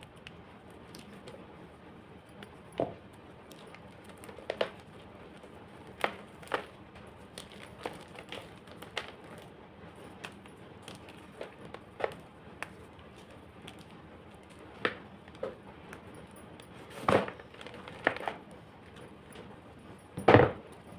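Homemade gym chalk being crunched: short, sharp, crumbly cracks spaced irregularly about a second or two apart, with the two loudest crunches near the end.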